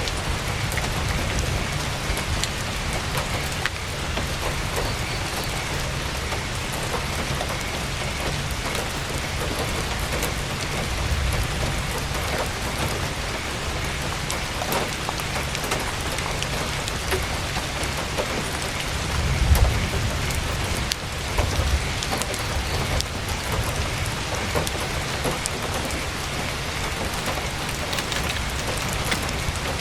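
Heavy rain hitting a tent's canvas: a steady hiss with many scattered sharp drop ticks over a low rumble. The low rumble swells louder briefly about two-thirds of the way through.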